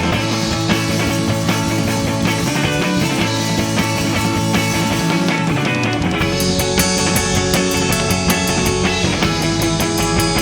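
Rock band playing live: an instrumental passage without vocals, with guitars, bass and drums. A run of quick, even cymbal strokes comes in about six seconds in.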